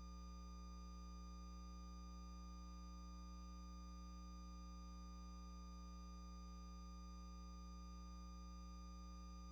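Faint, steady electrical hum with a few fixed overtones and a thin high whine: dead air on the cable channel's audio after the emergency alert message.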